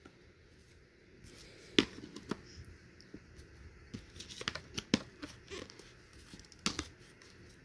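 Cardboard jigsaw puzzle pieces being handled, slid and pressed together on top of a cardboard box: light scrapes and scattered taps and clicks, the sharpest about two seconds in and near the end.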